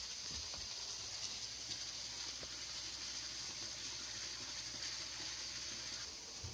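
Steady hiss of moving water in a koi holding tank, with a low hum underneath and a few faint ticks of small splashes.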